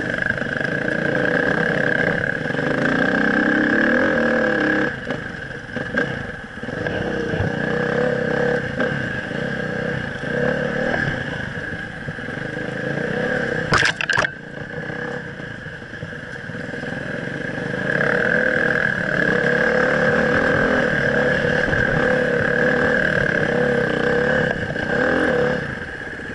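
Dirt bike engine running under the rider, revving up and easing off over rough single-track trail, with a brief sharp clatter about fourteen seconds in. The engine quietens near the end.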